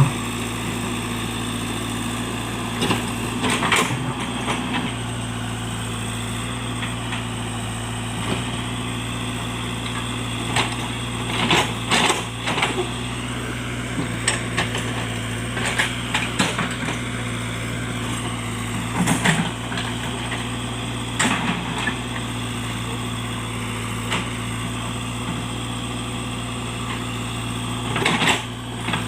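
Diesel engine of a JCB backhoe loader running steadily under work, with short loud knocks every few seconds.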